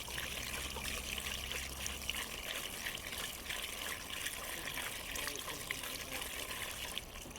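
Gasoline trickling and pouring steadily through a funnel into a motorcycle's fuel tank, the fresh fuel running in until the flow stops about seven seconds in.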